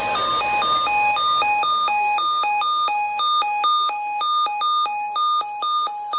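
Electronic alert beeps that step back and forth between a lower and a higher pitch in an uneven rhythm, then cut off suddenly at the end.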